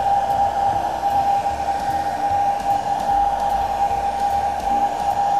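Handheld hot-air dryer blowing steadily with a high, even whine, drying a freshly wiped-on coat of leather cream filler.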